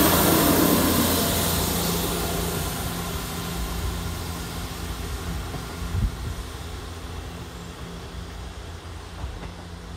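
Class 159 diesel multiple unit departing, its underfloor Cummins diesel engines running under power with a steady low hum and wheel-on-rail noise, fading evenly as the train pulls away. A single brief thump about six seconds in.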